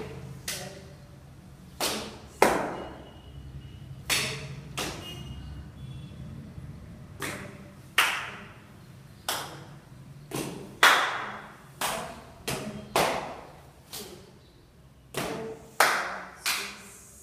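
Body percussion in a stomp dance: about twenty sharp hand claps and foot stomps on a wooden floor at an uneven rhythm, each ringing on briefly in the bare room.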